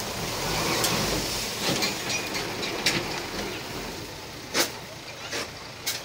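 Heavy earthmoving machinery at work: a steady mechanical hiss and rumble broken by several irregular sharp clanks and knocks, the loudest one late on.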